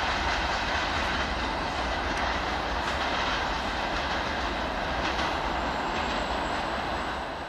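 Freight train of covered hopper wagons rolling past on the rails: a steady rolling noise from the wheels, with a few faint clicks, dropping away near the end.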